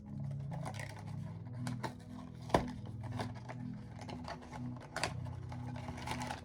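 Soft background music with a low, stepping bass line, under the rustle and clicks of a cardboard blind box and its wrapping being opened by hand. One sharp snap comes about two and a half seconds in.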